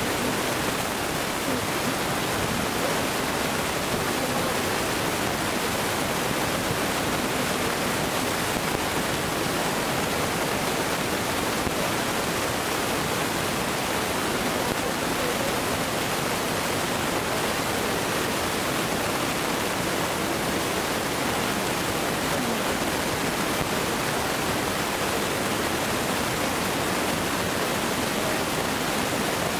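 A steady, even rushing noise with no bangs or other distinct events.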